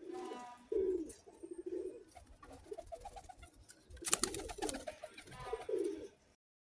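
Domestic pigeons cooing in low, repeated phrases, with a short burst of clatter about four seconds in. The sound drops out for a moment near the end.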